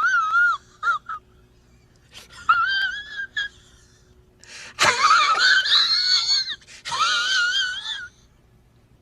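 High-pitched, wavering wailing cries repeated about four times, each a second or more long with the pitch shaking up and down. The loudest cry comes about halfway through.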